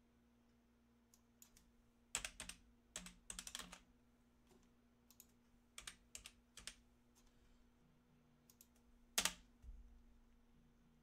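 Typing on a computer keyboard: scattered runs of key presses, then a single louder click near the end.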